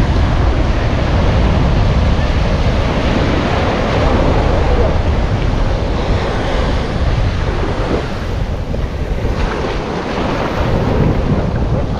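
Ocean surf breaking and washing up a sandy beach, a continuous loud rush, with wind buffeting the microphone.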